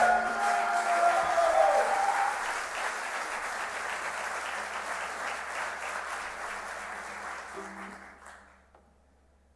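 Theatre audience applauding at the end of a folk dance number, the clapping rising over the last sustained note of the music and then slowly dying away, stopping shortly before the end.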